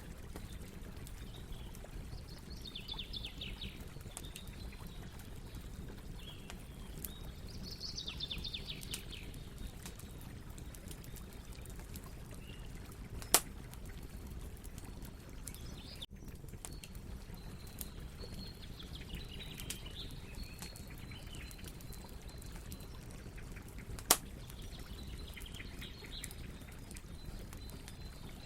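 Campfire burning with a steady low rumble and frequent small crackles, and two sharp loud pops, about 13 and 24 seconds in. High, rapid chirping trills come and go in the background several times.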